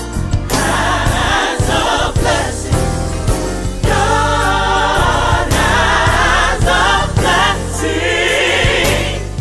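Gospel music with a choir singing over a steady bass accompaniment.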